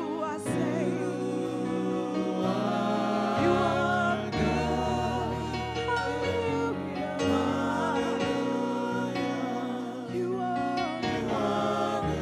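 Gospel worship song: a woman's lead voice with backing singers, sung into microphones over held accompaniment chords and a bass line that change every second or two.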